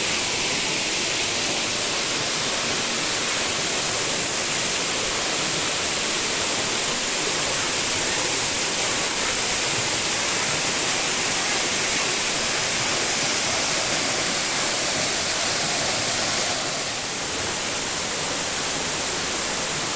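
Waterfall pouring down: a steady, dense rush of falling water, shifting slightly in tone about 17 seconds in.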